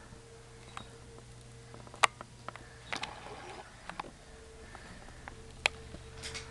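Toy train and track pieces being handled: scattered light clicks and knocks, the sharpest about two seconds in and again near six seconds, over a faint steady hum.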